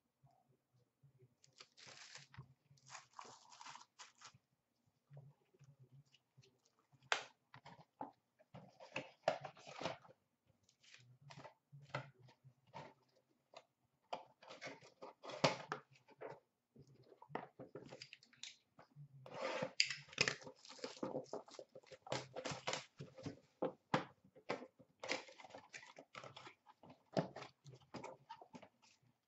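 Hands handling a clear plastic bag holding a hockey puck and opening a small cardboard puck box: irregular crinkling, rustling and small clicks, coming and going in short bursts.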